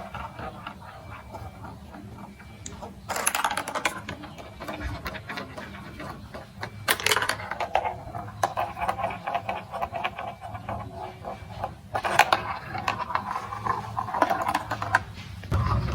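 Marbles rolling and clattering along a plastic building-block marble track, with runs of rapid clicks and stretches of steady rattling, and louder clusters of clacks about three, seven and twelve seconds in.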